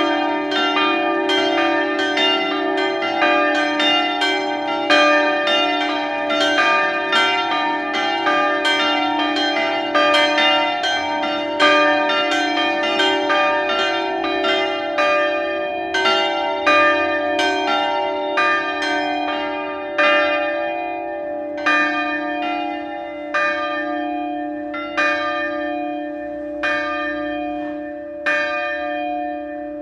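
Grensáskirkja's church bells ringing together: a quick run of overlapping strokes, about two or three a second, over a steady ringing hum from the bells. The strokes come further apart in the last ten seconds.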